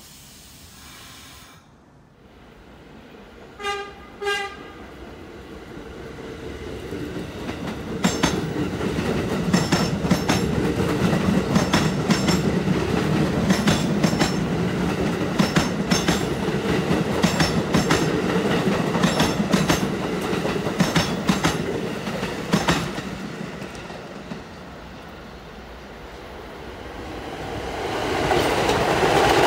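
Two short horn blasts from a New York City subway train about four seconds in, then the train passing the platform with a low rumble and its wheels clacking steadily over rail joints, dying away after about 23 seconds. Another train's rumble builds near the end.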